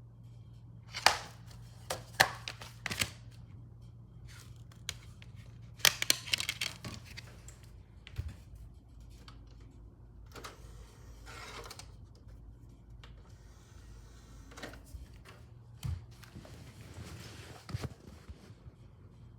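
Scattered sharp clicks and rustling handling noises over a steady low electrical hum.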